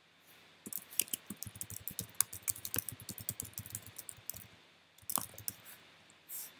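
Computer keyboard typing, a quick run of keystrokes lasting about four seconds, followed by a few single clicks near the end.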